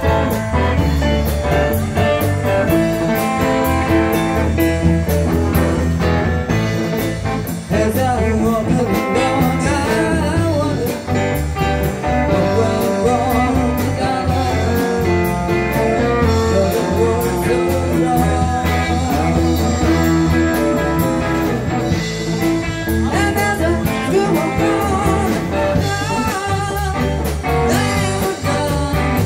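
Live band music: a woman singing over a Roland RD-300GX digital stage piano and electric guitar, with a steady beat.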